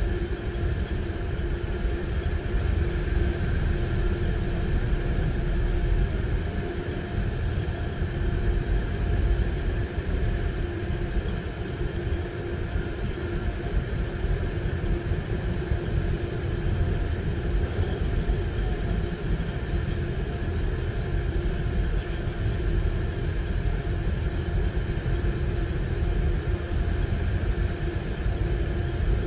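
Steady low diesel rumble with a constant engine hum from diesel trains at a station platform: a DSB ME diesel-electric locomotive creeping in with its train and an ICE-TD diesel multiple unit standing close by.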